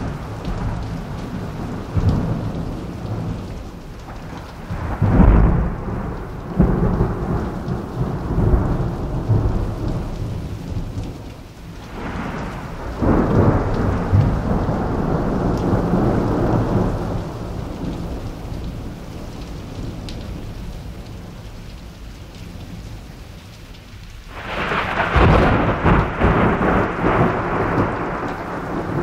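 Thunderstorm: steady rain with rolling thunder. The sharpest claps come about five to seven seconds in, with long rumbling rolls near the middle and again near the end.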